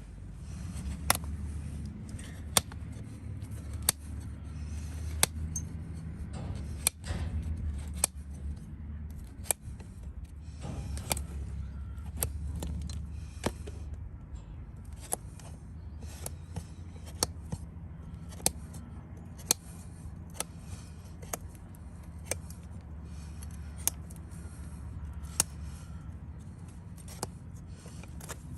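Farrier's hoof nippers snipping hoof wall: a series of sharp single clicks, about one a second, over a steady low hum.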